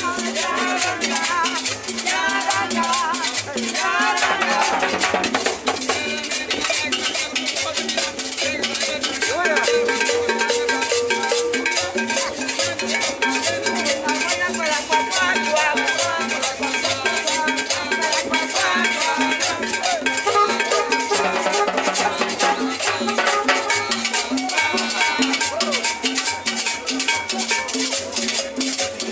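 Live Latin dance band playing an upbeat tune, with timbales and percussion keeping a quick steady beat under held melody notes.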